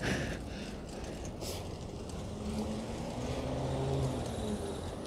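City street traffic heard from a moving bicycle, a steady low rumble. A passing motor vehicle's engine note rises and falls between about two and four and a half seconds in.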